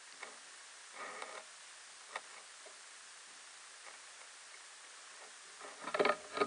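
Faint steady hiss with a few scattered short knocks and creaks, and a louder cluster of them about six seconds in.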